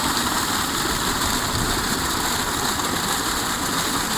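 Water gushing steadily from a 5-inch tube well's discharge pipe and splashing into a muddy pool.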